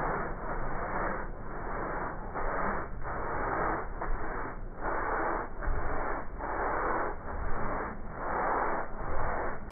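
Toothbrush scrubbing foamy cleaner into car upholstery fabric, a rhythmic back-and-forth scratchy brushing at a little over one stroke a second.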